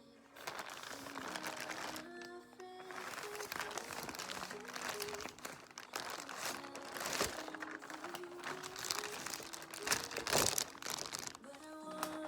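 Background music with a soft melody over a dense, continuous crackling noise.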